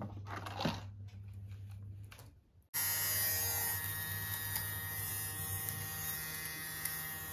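Nova electric lint remover running over fleece pyjama fabric, shaving off the pilling. A steady buzz starts abruptly about three seconds in.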